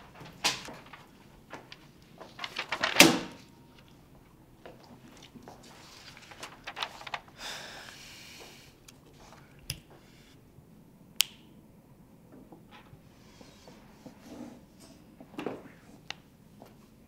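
Sheets of paper being handled and passed out at desks: scattered rustles, light knocks and clicks, loudest in a cluster about three seconds in, with a longer rustle of paper a few seconds later.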